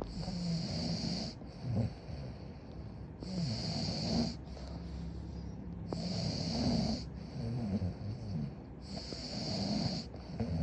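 Snoring in slow, even breaths, a rumbling snore about every three seconds with a hissy rush of air between.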